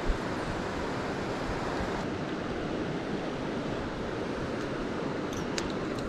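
Mountain creek water rushing steadily over rocks, a continuous even hiss, with one short knock just at the start.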